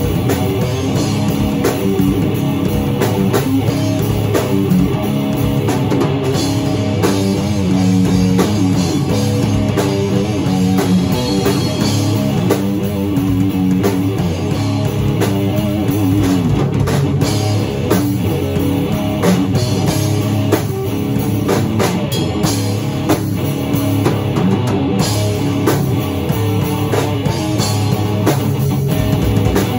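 Rock music: a guitar riff played over a drum kit, loud and continuous.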